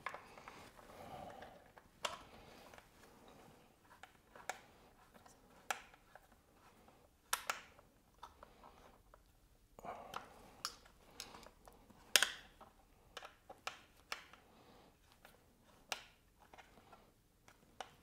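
Irregular small metal clicks and taps as a hand driver turns and seats large-flange button-head bolts holding brake-line clips on a motorcycle fork guard. One sharper click comes about twelve seconds in.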